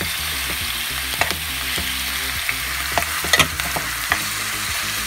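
Chopped seasoned beef sizzling steadily as it fries in a stainless steel pot, with a metal spoon clicking and scraping against the pot as the meat is stirred; a few sharper clicks come around three seconds in.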